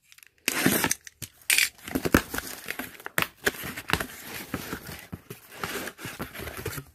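Cardboard box being opened by hand: a box cutter slits the tape, then the flaps and inner cardboard layer are pulled open and rubbed. It is a run of irregular scraping and rustling with light knocks, starting about half a second in.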